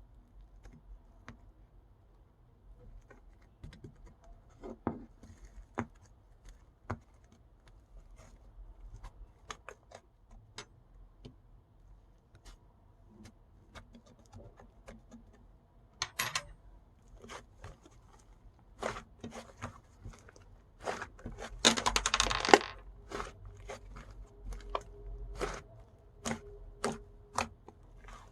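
Slime being handled: scattered small clicks and pops, with a longer, louder burst of crackling about twenty-one seconds in that lasts a second or so.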